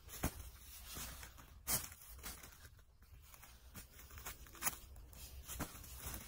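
Disposable diapers being torn apart and crinkled by a baby's hands: a few short, sharp rips, the loudest about a second and a half in, with soft rustling between them.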